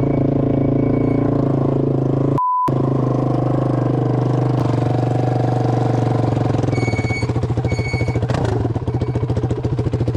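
Honda TRX450R quad's single-cylinder four-stroke engine running at a steady speed, then settling into a pulsing, lumpy idle about two thirds of the way through. A short beep cuts in about two and a half seconds in.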